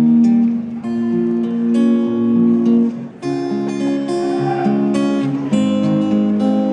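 Acoustic guitar strumming sustained chords, the introduction of a song before the vocals come in, with a brief break about three seconds in.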